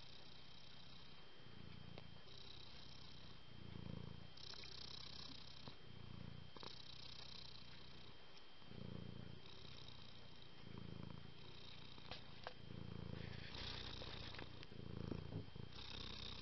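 Domestic cat purring, a low rhythmic rumble that swells and fades about every two seconds, alternating with a breathy hiss between the swells.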